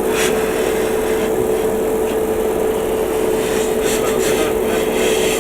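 Airbrush compressor running steadily with a constant hum, with a few light clicks from parts being handled.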